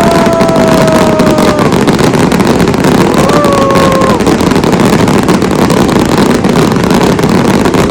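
A heavy fireworks barrage: a continuous, loud crackle and rumble of many shells bursting together. Whistling shells sound over it, their pitch sliding slowly down in the first second and a half, and another brief whistle comes about three seconds in.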